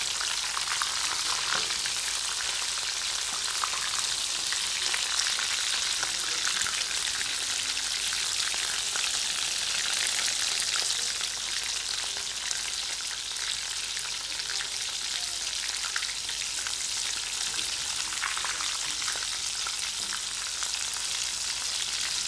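Breaded fish fingers deep-frying in hot oil: a steady sizzle peppered with many small crackling pops.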